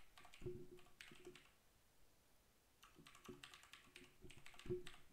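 Faint typing on a computer keyboard: two runs of keystrokes with a pause of about a second and a half between them.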